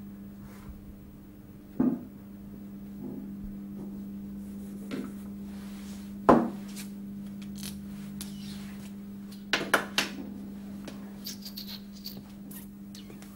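A marker writing on a whiteboard, with a few sharp taps and knocks, the loudest about six seconds in and a quick cluster near ten seconds, and some scratchy squeaks towards the end. A steady low hum runs underneath.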